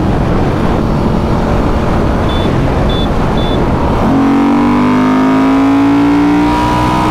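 Wind rushing past at highway speed. From about four seconds in, the 2008 Ducati Hypermotard's air-cooled L-twin engine pulls hard at full throttle, its pitch climbing steadily, and the revs break near the end for an upshift.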